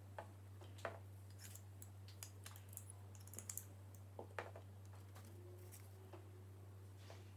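Irregular light clicks and taps, like small plastic or metal parts being handled, over a steady low electrical hum.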